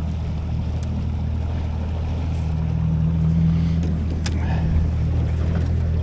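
Small boat's motor running steadily at low trolling speed, a steady low hum, with a light click about two-thirds of the way through.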